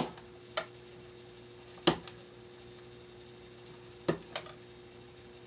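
Small metal hand tool working the end of an electrical wire: a few sharp clicks, the loudest about two seconds in and a close pair near four seconds, over a faint steady hum.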